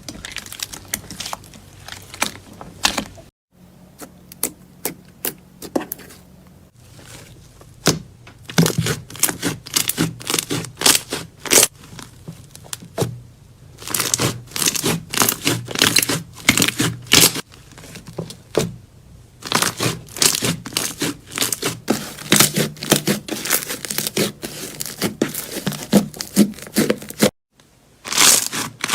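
Slime being squeezed and pressed by hand, giving rapid sticky clicks and crackles in bursts, with two abrupt cuts between clips.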